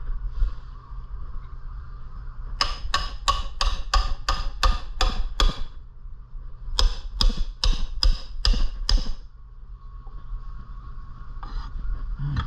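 Hammer blows on the stuck flywheel of a Predator 212cc engine, trying to knock it loose from the crankshaft: sharp metallic strikes at about three a second, a run of about nine, then after a short pause about seven more.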